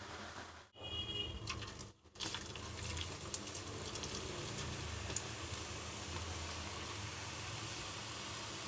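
Water running steadily from a kitchen tap, broken by two short gaps about one and two seconds in.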